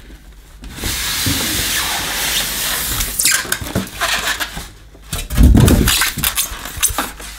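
Packaging being handled as the carpet washer is pulled out of its cardboard box: polystyrene and cardboard scraping and rustling for a couple of seconds, then more scrapes. About five seconds in comes a loud, heavy bump.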